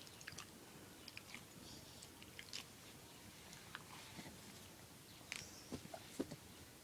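Near silence, with a few faint, short clicks and smacks scattered through it.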